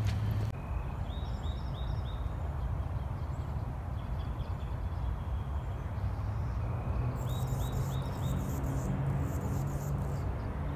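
A small bird singing: a run of about four quick, high chirps about a second in, another about seven seconds in, then a couple of seconds of thin, scratchy, very high notes. A steady low rumble underneath.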